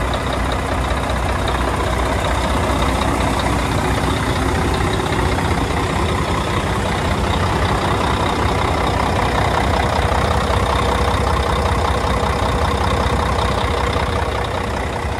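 Volvo D12 inline-six diesel engine of a 2004 Volvo tractor truck idling steadily, a little louder midway as the microphone nears the open hood.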